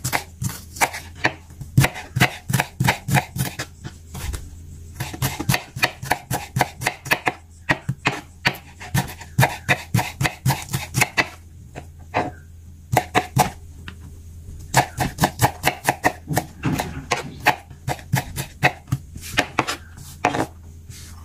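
Kitchen knife dicing red onion on a wooden cutting board: quick runs of sharp knife taps on the board, several a second, broken by short pauses.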